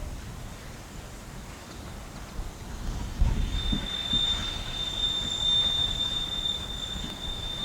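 Steam train under way: a steady high-pitched squeal of wheels on the rails sets in about three and a half seconds in and holds, over a few low, heavy thumps that begin about three seconds in.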